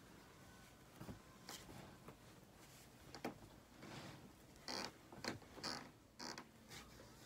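Faint rustling and swishing of a cotton T-shirt as the wearer turns and moves, in a string of short brushing sounds that grow a little louder past the middle.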